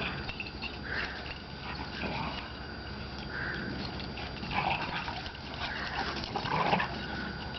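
A dog vocalizing while at rough play: a series of short, separate calls, the loudest two in the second half.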